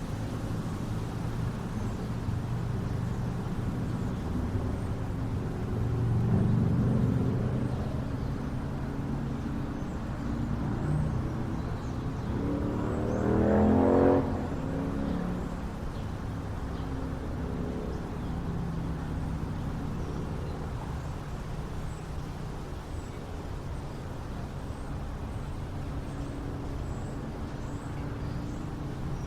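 Small-town outdoor ambience: a steady low rumble of wind and distant traffic, with a car passing about six seconds in. A second vehicle then accelerates past, its engine pitch rising, loudest about fourteen seconds in before it drops away.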